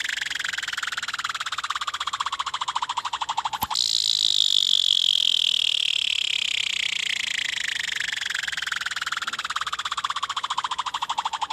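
Fidget spinner whirring as it spins down, a pulsing buzz that falls steadily in pitch as it slows. About four seconds in, a sharp click and the whir jumps back up high, then slowly falls again.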